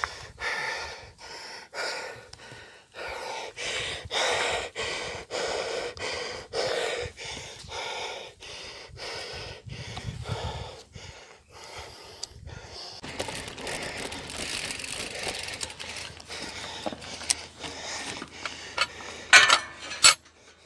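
A man panting hard, about two breaths a second, out of breath after pedalling a bicycle up a steep hill. About 13 seconds in, the panting gives way to a steady rushing noise, with a couple of sharp louder sounds near the end.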